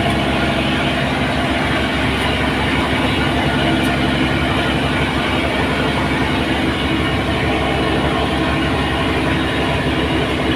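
An engine running loud and steady at an even speed, with a constant hum and fast even pulsing.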